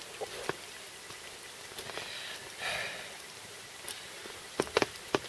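Steady hiss of rain falling, with a couple of soft breaths about two seconds in and a few sharp clicks near the end.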